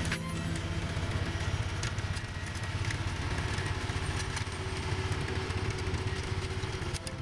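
Kubota tractor's diesel engine running steadily as it pulls a broadcast spreader throwing chicken litter, with a few sharp clicks.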